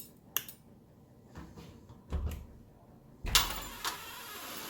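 A light switch clicking, then a dull thump and a loud clunk followed by nearly two seconds of steady scraping rush, as a door is opened.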